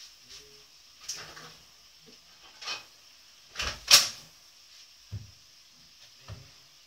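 Kitchen clatter: about six separate knocks and clunks as things are handled at the worktop and in the cupboards, the loudest a sharp double knock about four seconds in.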